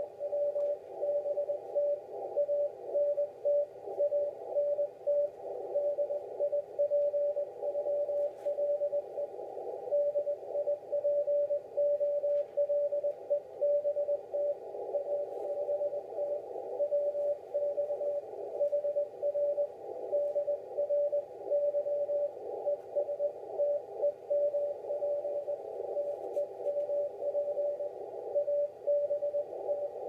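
Morse code (CW) coming in on a ham radio transceiver: a steady mid-pitched beep keyed on and off in dots and dashes, over band hiss narrowed by the receiver's CW filter. It is the other station's signal being copied down, not the operator's own keying.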